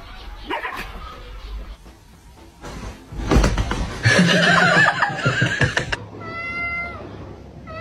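Domestic cats: a loud, harsh stretch of noise during a play-fight about halfway through, then a cat meowing near the end, a steady call that falls slightly in pitch.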